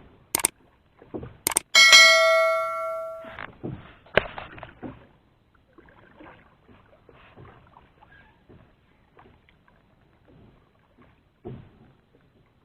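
Two sharp clicks, then a bell-like metallic ring lasting about a second and a half that cuts off suddenly, followed by faint scattered ticks and rustles.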